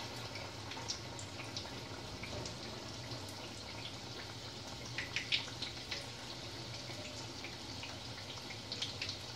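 Medu vada frying in hot oil in a steel kadhai: a steady sizzle with a few crackling pops about five seconds in and again near the end.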